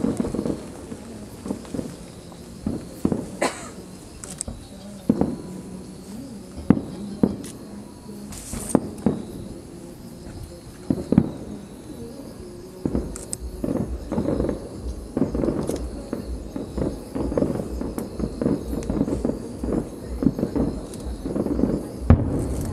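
Aerial fireworks going off in scattered sharp bangs, about one every one to two seconds, over the murmur of a crowd.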